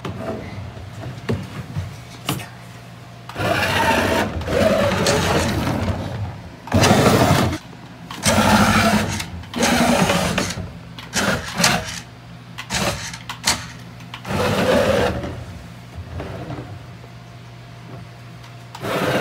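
Electric motor of a radio-controlled toy LaFerrari Aperta whirring in about five bursts of a second or two each as the car drives on a wooden floor. A steady low hum runs between the bursts.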